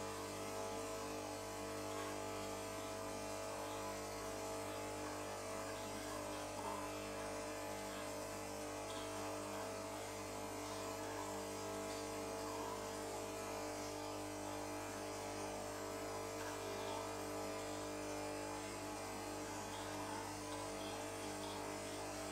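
DeLonghi ECAM22.360.S bean-to-cup coffee machine running a steady buzzing hum while it dispenses coffee into a glass mug.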